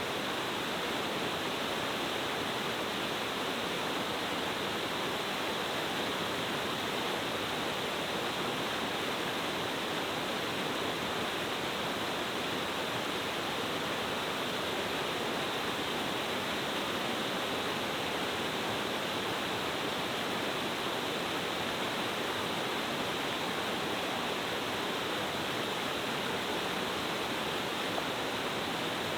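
Steady rushing of a multi-tiered mountain-stream waterfall, water falling over several rocky steps in an even, unbroken roar.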